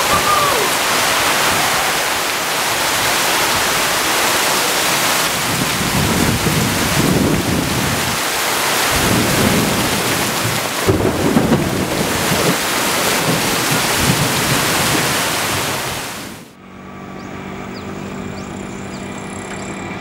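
Heavy rain falling, a loud steady rushing with low rumbles around the middle. It cuts off suddenly near the end, leaving a much quieter ambience.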